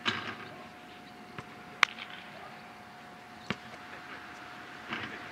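A basketball striking the outdoor court and hoop: a few separate sharp bangs, the loudest about two seconds in, with faint players' voices.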